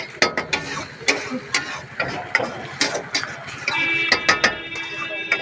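Metal spatula knocking and scraping against a metal wok (kadhai) as a thick red mixture is stirred, in quick irregular clicks. About two-thirds of the way through, steady music with held notes starts up alongside it.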